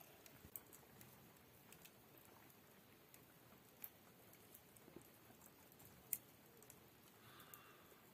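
Near silence: faint room tone with a few scattered faint clicks, the clearest about four and six seconds in.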